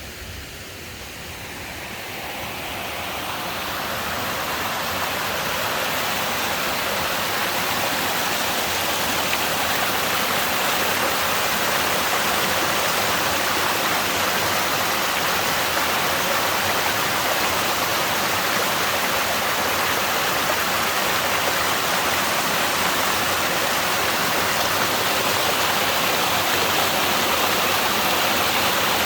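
A small stream swollen by monsoon rain into a full torrent, rushing steadily. The rush builds over the first few seconds, then holds level.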